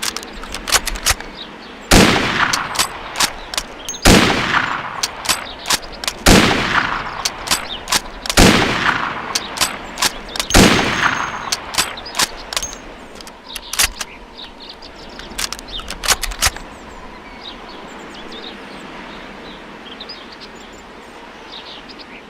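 Springfield rifle firing five shots about two seconds apart, each with a long echoing tail, with short sharp clicks between and after the shots.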